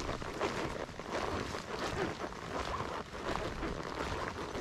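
Horse walking on a trail: irregular hoof falls and rustling over a steady noisy hiss.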